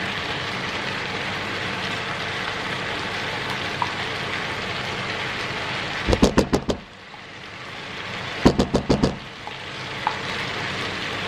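Chicken and mushrooms in a pesto and crème fraîche sauce sizzling in a frying pan. Twice, about six and eight and a half seconds in, there is a quick run of five or six sharp knocks.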